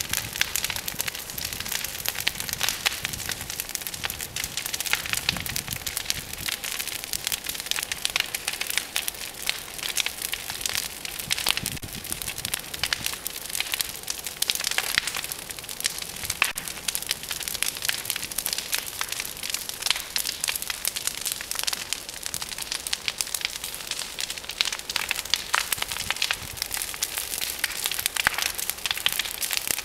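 Large brush pile of tree branches burning hard, with continuous dense crackling and popping over the hiss of the flames.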